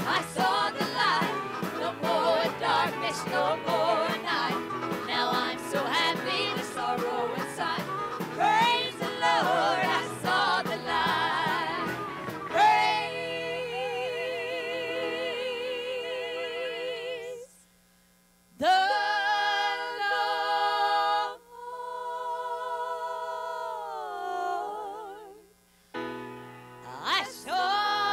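Female lead singer and backing singers with a band. About halfway in, the dense accompaniment falls away and the voices hold long chords in close harmony with vibrato, breaking off briefly twice.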